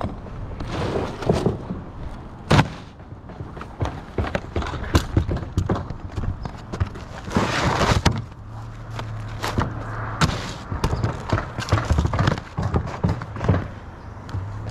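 Footsteps on a roof and asphalt shingles being handled: irregular knocks and thuds, with a longer scraping rustle of shingles about eight seconds in.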